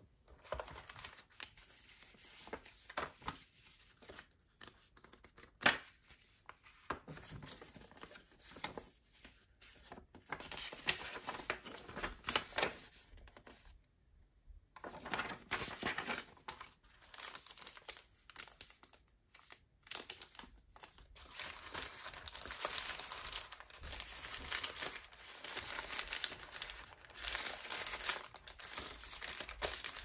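Packaging being unwrapped by hand: plastic and paper crinkling and tearing, with scattered clicks and knocks of parts being handled. The crinkling grows denser and steadier in the second half.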